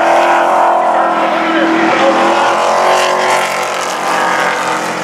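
Pro Truck race engines running at speed on an oval track, several engines overlapping and rising and falling in pitch as the trucks go by.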